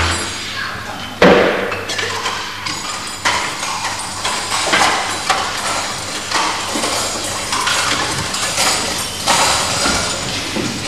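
Bowls clattering and knocking on a tabletop as several children grab at them, with scattered clinks and a sharp knock about a second in.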